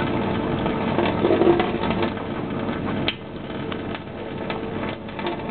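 Tap running in a thin stream into a sink basin, water spattering and gurgling, while a cat drinks from the stream with small wet clicks.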